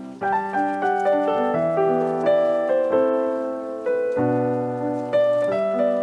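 Background piano music: a gentle melody of single notes over sustained chords.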